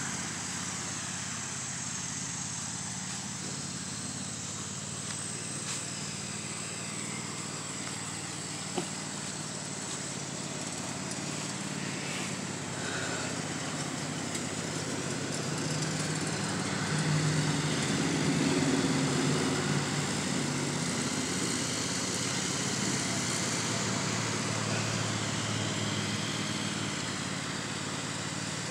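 Riding lawn mower's engine running steadily as it mows, louder for a few seconds around the middle as it passes closer. A single sharp tick comes about nine seconds in.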